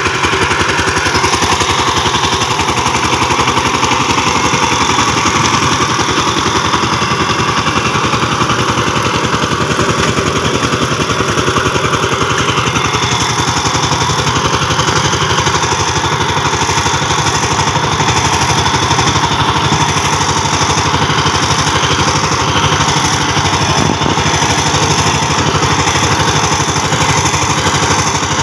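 Two-wheel power tiller's single-cylinder diesel engine running steadily with a rapid, even chugging as the tiller is driven through the field.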